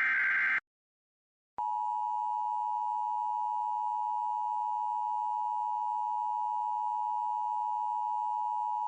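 Emergency Alert System broadcast on FM radio: the last SAME header data burst gives a short buzzy screech that stops about half a second in. After a second of silence, the steady two-tone EAS attention signal (853 and 960 Hz together) starts about one and a half seconds in and holds without change.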